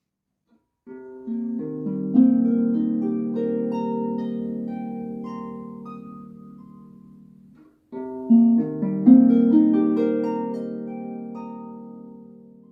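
Harp music: two short phrases of plucked notes, each string ringing on and slowly fading. The first phrase stops abruptly about two-thirds of the way through, and the second begins straight after and fades out near the end.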